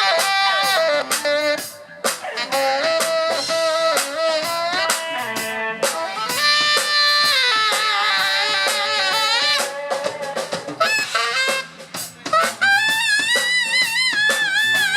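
Live rock band playing, with a saxophone soloing over drum kit and bass; the sax holds a wavering note near the end.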